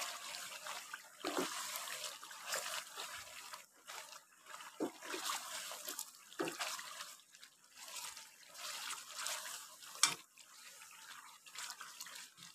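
Mutton sizzling in ghee in a frying pan while a wooden spatula stirs it, scraping through the meat with irregular knocks against the pan; the loudest knock comes about ten seconds in.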